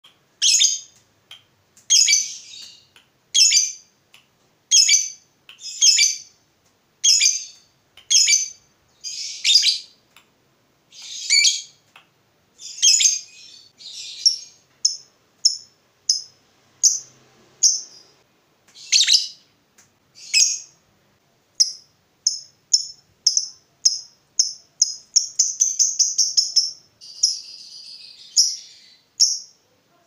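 Lovebird calling: loud, harsh high shrieks about once a second, then from about two-thirds of the way in shorter chirps that speed up into a rapid run-together chatter, the long 'ngekek' call prized by lovebird keepers.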